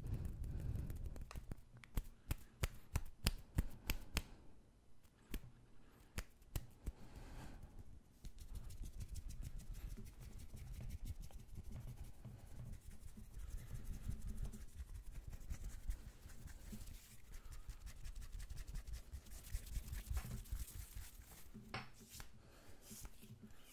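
Close-miked hand sounds: fast skin-on-skin rubbing and brushing, broken by sharp clicks that come thickest about two to four seconds in.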